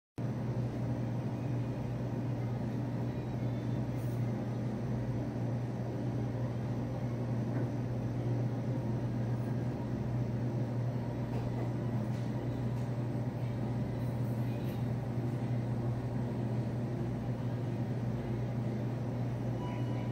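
Steady low hum of refrigeration equipment running: glass-door drink coolers and an ice merchandiser, with a few faint ticks.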